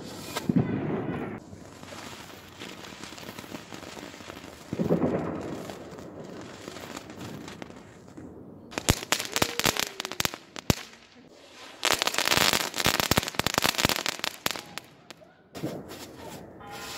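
Small ground firework spraying sparks: a run of sharp crackles from about nine to eleven seconds in, then several seconds of dense crackling hiss. Two dull booms come before it, about half a second in and again about five seconds in.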